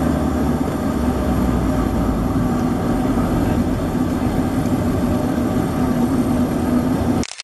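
Let 410's twin turboprop engines running at low power while the aircraft taxis, heard from inside the cabin: a steady drone with a constant hum. The sound cuts off abruptly at the very end.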